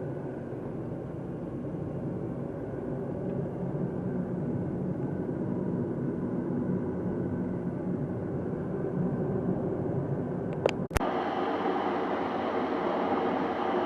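Steady road and engine noise inside a moving car. About eleven seconds in there is a sharp click, and the noise abruptly changes, with less low rumble and more hiss.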